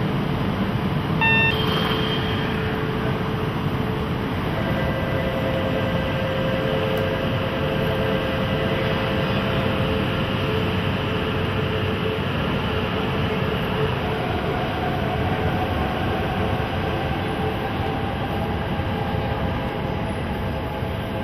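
E4 series double-decker Shinkansen pulling out of the platform: a steady rumble of the train rolling, with an electric whine of steady tones from its traction motors setting in after a few seconds and a higher tone rising later as it gathers speed. A short beep sounds about a second in.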